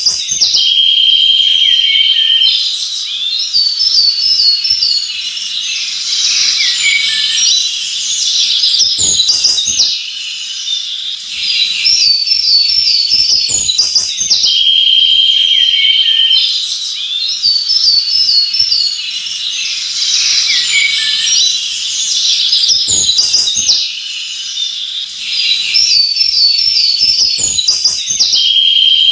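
Songbirds chirping and singing together, with rapid trilled phrases and a recurring long steady whistled note. The same sequence of calls repeats about every 14 seconds.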